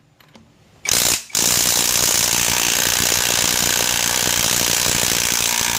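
Cordless brushless 1/2-inch drive impact wrench hammering in reverse on a lug nut torqued to 81 foot-pounds: a short burst about a second in, a brief pause, then continuous rapid hammering as the tool works to break the nut loose.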